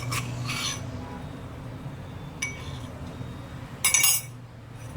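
Kitchen utensils clinking against cookware as whole spices and ginger are added to water for tea: a short clatter about half a second in, a faint tick a couple of seconds later, and a louder clatter near the end, over a low steady hum.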